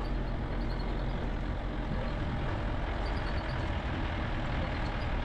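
Safari jeep driving along a dirt forest track: its engine runs steadily under a constant rumble of road noise.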